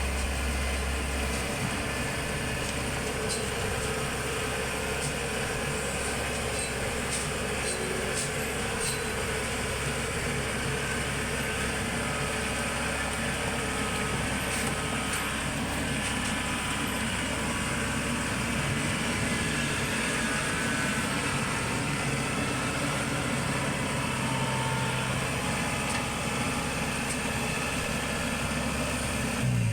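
Combine harvester engine running steadily at a constant speed; its deepest hum drops away about a second and a half in.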